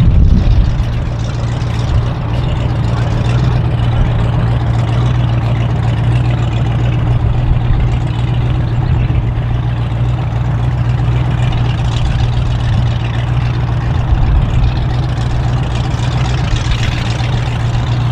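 Steady low engine drone with an even wash of outdoor noise over it, holding level throughout.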